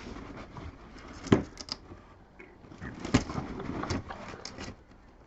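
Cardboard set box being handled and turned over: rustling and scraping with two sharp knocks, about a second in and about three seconds in.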